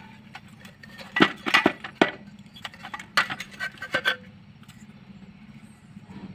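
Metal parts of a dismantled electric horn being handled, clinking and tapping against each other and the bench: a cluster of sharp clicks and knocks with a brief metallic ring between about one and four seconds in.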